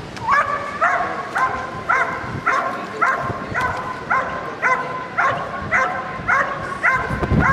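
Belgian Malinois barking steadily and rhythmically at a standing protection helper, about two barks a second: the hold-and-bark guarding of an IPO protection exercise.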